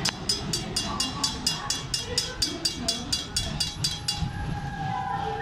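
Railroad crossing signal bell ringing in rapid, even strikes, about five a second, then stopping about four seconds in as the train clears the crossing.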